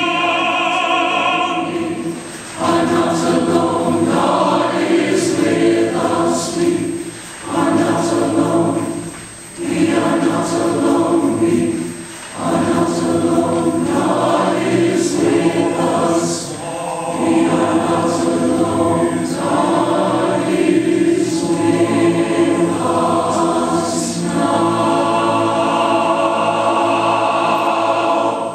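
Large mixed choir singing, phrase after phrase, with short breaths between phrases and crisp 's' consonants sung together.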